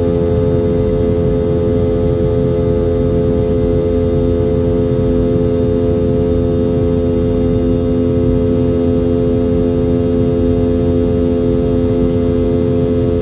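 Boeing 717's rear-mounted Rolls-Royce BR715 turbofan engines heard from inside the cabin in flight: a loud, steady drone with several held tones over a low rumble.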